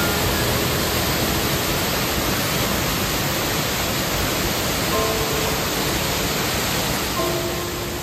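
Steady, even rushing of a waterfall pouring into a pool, with a few soft notes of background music over it.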